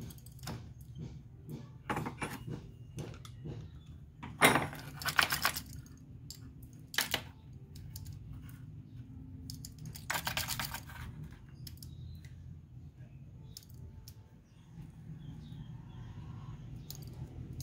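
Metal clicking and clinking as a Multicab F6A carburetor is handled and turned over by gloved hands during disassembly, with two louder bursts of rattling clatter about four and ten seconds in.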